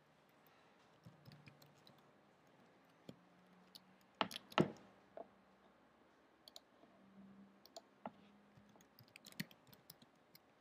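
Faint, irregular computer keyboard keystrokes and clicks, with two louder clicks about four seconds in.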